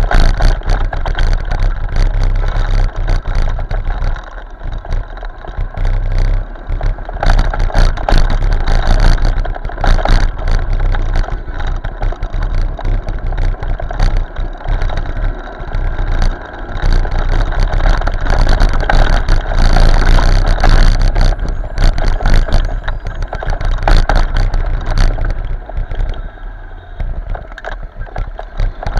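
Ride noise of a motorcycle moving through traffic, recorded on an action camera: a heavy steady rumble from the bike and the road, with wind rushing and buffeting over the microphone. It eases briefly about four seconds in and again near the end.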